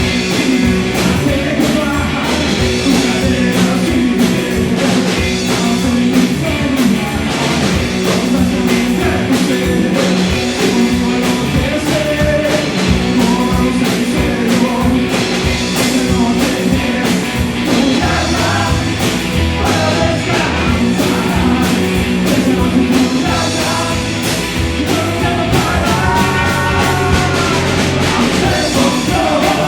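Rock and roll band playing live, with electric guitars, bass and drums and a singing voice over a steady driving beat.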